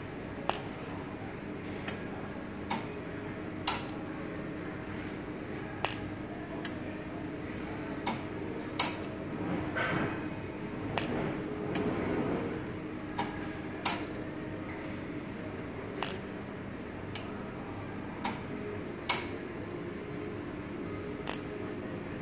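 Capacitor-discharge unit under test at about 40 V, giving sharp single clicks at uneven intervals of roughly one to two seconds over a steady electrical hum. A short rustle of handling comes around ten to twelve seconds in.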